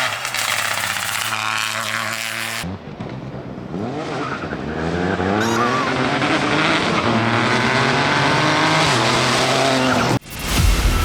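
Peugeot 208 Rally4's turbocharged three-cylinder engine at racing speed, its pitch rising and falling as it revs through gear changes. About ten seconds in it cuts off suddenly and music starts.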